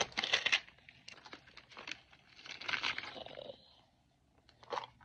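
Plastic wrapping crinkling and tearing as it is peeled off a mini-toy capsule ball, in crackly bursts: loudest right at the start, again for about a second past the middle, and briefly near the end.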